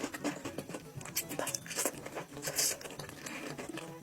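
Close-miked eating sounds: chewing and smacking on goat-head meat, with irregular short clicks and crackles.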